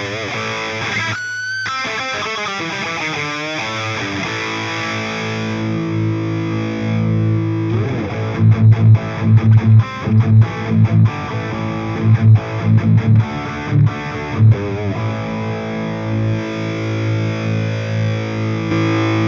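Distorted electric guitar played through the Andy Zeugs Anvil amp-simulator plugin: bending single-note lines for the first few seconds, then a run of short, hard chord stabs from about eight to fifteen seconds in, settling into held, ringing chords near the end.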